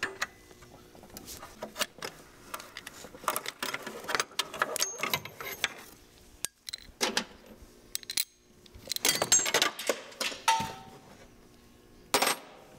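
Irregular metallic clicks and clinks, with quick runs of clicking, from a hand ratchet and 12 mm socket and the loose pulley and bolt as the timing belt idler pulley is unbolted.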